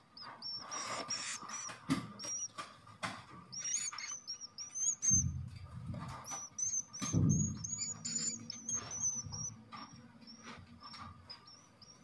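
Edible-nest swiftlets at close range: a run of short, high chirps with upturned ends, many quick dry clicks, and a couple of low rustling bumps about five and seven seconds in.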